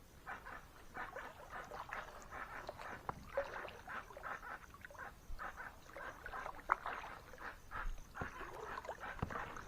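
A jacu (guan) calling: a run of short, rapidly repeated squawking calls.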